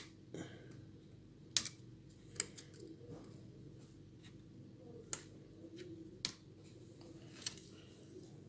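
Small sharp clicks and taps, about seven spread irregularly, as a pry tool unclips the display's flex-cable connectors from the logic board inside an opened iPhone 7 Plus.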